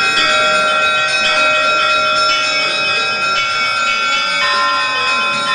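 Bells ringing, many pitched tones sounding together and ringing on, with a new stroke coming in now and then.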